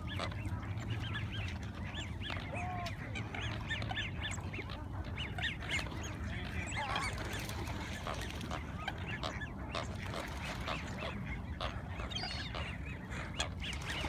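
A flock of waterbirds at feeding time, gulls and ducks calling over one another in many short, overlapping, rising-and-falling calls, over a steady low rumble.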